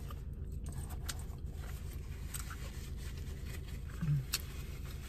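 Steady low rumble of a parked car with its engine running, under faint mouth clicks and paper rustles from eating a sandwich. A short closed-mouth 'mm' comes about four seconds in.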